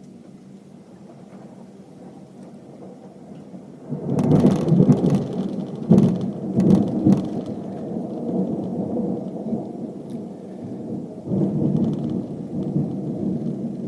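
Thunder over heavy rain: a steady rain hiss at first, then about four seconds in a loud thunderclap with several sharp cracks that rolls on as a low rumble, swelling again near the end.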